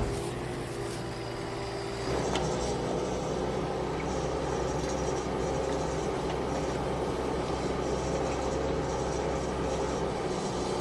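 Excavator's diesel engine running steadily, rising in level about two seconds in as it works.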